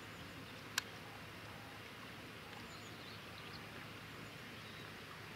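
Faint outdoor ambience: a steady low hum under a soft hiss, a single sharp click about a second in, and a few faint high bird chirps near the middle.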